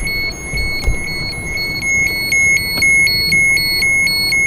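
Radiation dosimeter alarm beeping rapidly in a high-pitched tone, the beeps growing longer and closer together about two seconds in. It is the warning of raised radiation levels at the Red Forest, the sound the guide says makes visitors panic.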